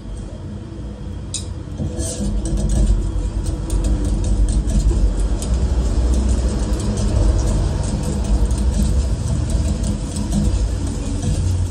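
Batter sizzling on a hot cast-iron takoyaki griddle over a steady low rumble, with metal picks clicking and scraping against the iron pan from about two seconds in as the batter is cut and turned into the cells.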